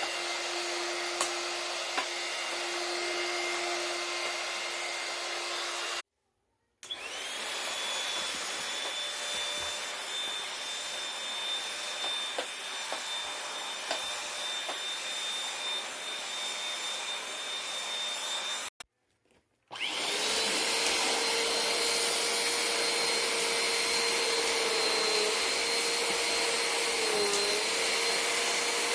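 Vacuum cleaners running, in three stretches cut together with brief dropouts to silence about 6 and 19 seconds in. After each cut a different motor spins up to a steady whine, the last one louder and higher-pitched.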